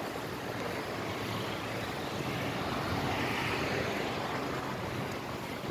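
Steady city road traffic noise that swells and fades again around the middle.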